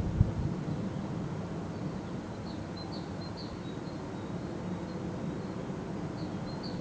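Small birds chirping in short high notes, a few around the middle and again near the end, over the steady low hum of a paper mill. A sharp knock sounds just after the start.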